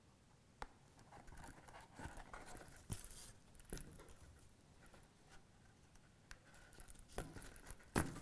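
Faint, scattered rustles and small clicks of hand saddle stitching: needles and thread being pulled through the holes of a leather case and the leather being handled.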